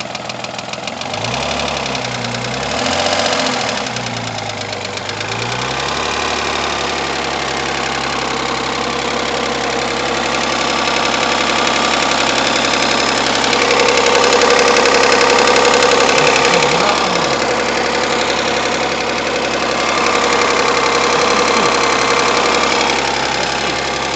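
Rover 75's 2.0 V6 (20K4F) running with a heavy knock, the revs rising and falling once near the start. The knock comes from two metal fragments left in cylinder five, one caught between a valve head and its seat and one loose in the combustion chamber.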